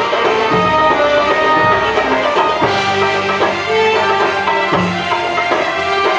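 Middle Eastern belly-dance music: a melody on an electronic keyboard over a steady drum rhythm.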